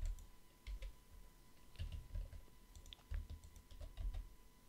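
Faint, scattered clicks and taps of a computer keyboard and mouse, a few keystrokes at uneven intervals, with soft low thumps between them.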